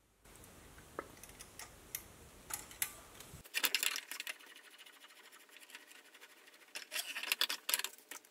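Small parts of a CNC 3018's Z-axis assembly handled by hand: a few faint single clicks as the anti-backlash spring and lead screw are worked, then clusters of sharper rattling clacks about three and a half seconds in and again near the end as the carriage is pushed by hand.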